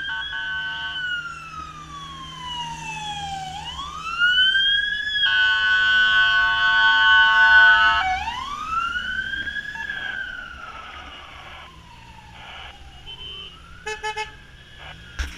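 Fire engine's siren wailing in long, slow sweeps, falling and rising in pitch, broken by a steady blaring horn tone at the start and again for about three seconds in the middle, its loudest part.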